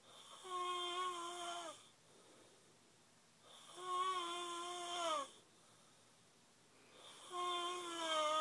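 A man snoring: three long snores, each a hissing breath with a held tone that bends downward as it ends.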